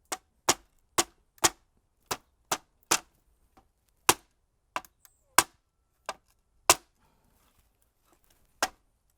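Rubber mallet knocking apart the joints of a wooden chair: about a dozen sharp single blows at uneven intervals, with a pause of about two seconds near the end.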